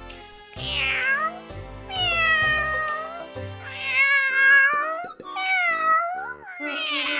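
Domestic cat meowing over and over in long, drawn-out meows, with background music underneath.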